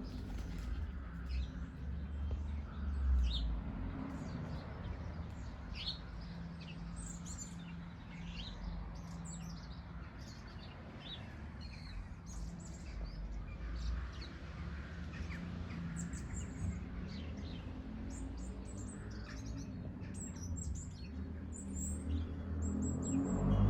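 Small garden birds chirping and tweeting, many short high calls scattered throughout, over a steady low rumble.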